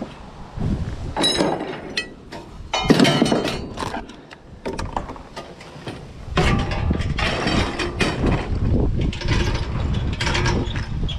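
Scrap metal being loaded onto a utility trailer: repeated clanks and rattles of metal tubing and frames knocking against each other and the trailer. A low rumbling noise runs under the clatter from about six seconds in.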